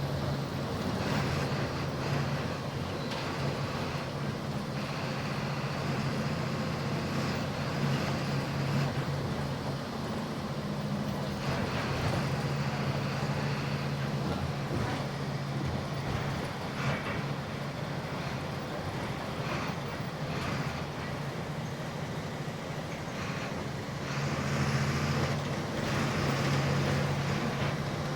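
Volkswagen 17.230 EOD bus's diesel engine running at high revs under way, its steady low drone swelling and easing off several times over road noise.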